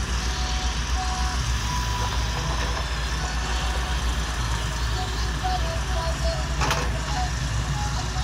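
Volvo EW145B wheeled excavator's diesel engine running steadily with a low pulsing rumble as the machine digs, swings and dumps soil, with a series of short high beeping notes at changing pitches sounding on and off. A short sharp clatter comes near the end.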